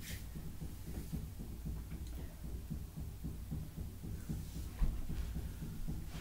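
Low rumble with soft thumps and bumps as a person shifts about on an office chair and grips its seat, with one louder thump about five seconds in.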